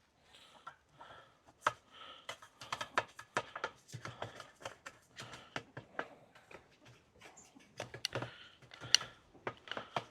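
Brush scrubbing the bottom of a chicken waterer: a rapid, irregular run of sharp scratchy clicks and knocks.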